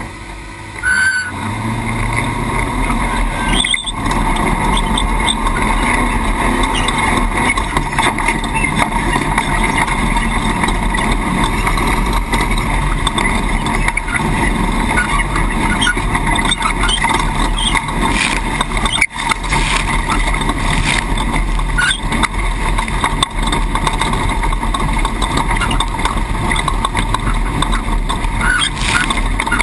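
Off-road race truck running at speed, a steady engine and rough-terrain noise with a few short knocks.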